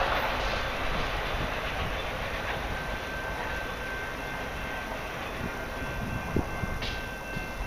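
Tail end of a long freight train's autorack cars rolling away on the rails, the wheel noise fading gradually. A thin steady whine enters partway through, and there is a sharp click about six seconds in.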